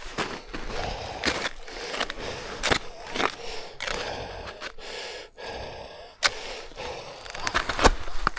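A hiker's heavy, labored breathing while climbing, mixed with sharp crunches and snaps of footsteps through brush and twigs; the loudest snaps come near the end.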